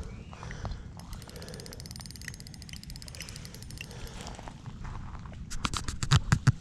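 A carp fishing reel clicking rapidly and evenly while a hooked fish is played on the line. Near the end come several loud thumps.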